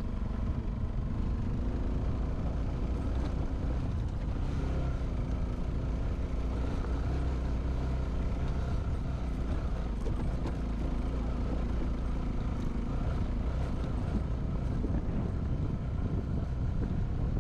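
A vehicle's engine running steadily under way, heard as a continuous low rumble with a faint engine note that drifts slightly in pitch, recorded on a GoPro Hero 5 Session action camera.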